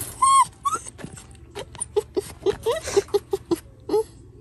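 Siberian husky puppy whining in its crate: two short whines, then a quick run of about a dozen short whimpers and yips.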